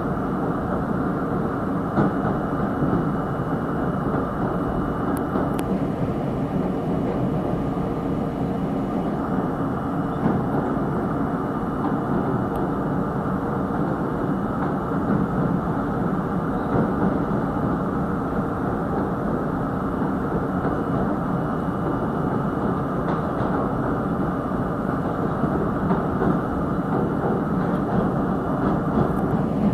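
R32 subway car running steadily on the bridge tracks, heard from inside through its open front railfan window: a continuous rumble of wheels on rail, with a couple of sharp clicks about five seconds in.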